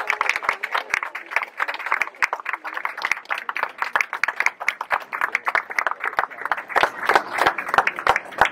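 Audience applauding: many hands clapping unevenly and continuously as the mural is uncovered.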